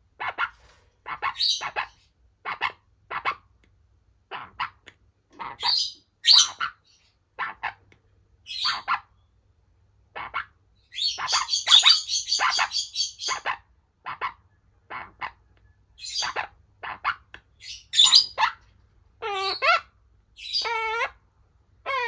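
Monk parakeet calling: a string of short chirps, then a harsh, rasping squawk run lasting a couple of seconds about eleven seconds in, and a few longer, pitched calls that slide downward near the end.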